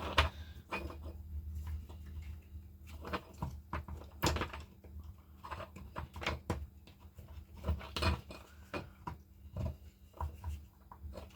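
Irregular small clicks and knocks as the parts of a Makita DTD154 impact driver are handled and fitted into its housing during reassembly, over a steady low hum.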